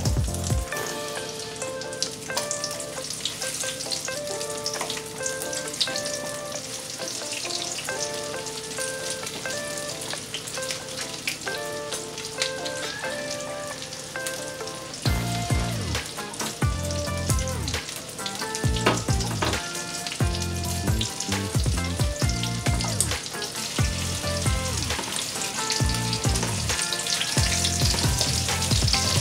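Breaded shrimp frying in a pan of hot oil: a steady sizzle with crackling. Background music with melodic notes plays throughout, and a bass beat comes in about halfway.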